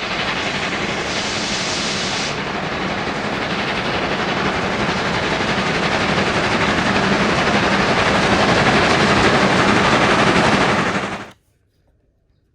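Loud, steady rushing roar of a large vehicle or engine that cuts in and cuts off abruptly, with a brief extra hiss on top about a second in.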